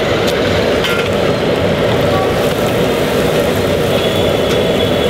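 Puri deep-frying in a wok of hot oil, a steady, loud rushing sizzle as the bread balloons up under a slotted spoon.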